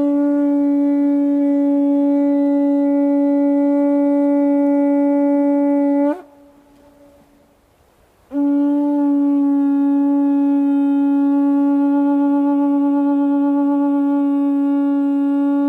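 A horn blown in two long, steady notes on one pitch, each several seconds long with a short break between, each ending with a slight upward bend in pitch as it cuts off.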